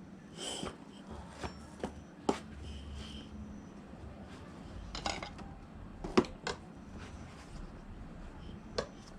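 Scattered metallic clinks and knocks of hand tools and scooter parts being handled during repair work, the loudest knock about six seconds in.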